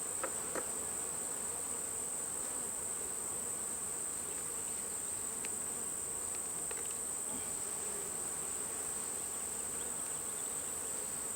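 Honey bees buzzing steadily around an open hive during a frame inspection, with a constant high-pitched tone above the drone and a couple of faint ticks near the start.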